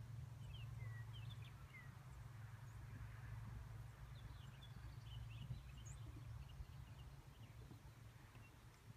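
Faint, scattered short chirps of small birds in two loose clusters, over a low steady rumble, in near silence.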